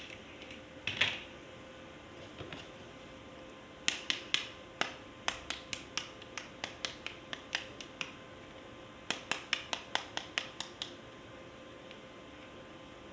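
Sharp plastic clicks in two runs, a few a second, with a louder knock about a second in: a plastic toy being handled and clicked.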